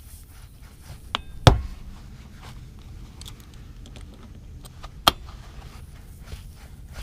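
Sharp metal clicks from hand tools being handled: a small click about a second in, a louder snap just after, and another about five seconds in, as the locking pliers and the nail just pulled from the tyre are worked.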